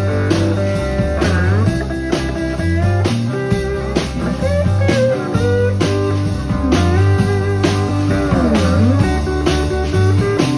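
Live rock band playing a bluesy passage without vocals: electric guitars, bass and drum kit, with a lead guitar bending notes up and down twice.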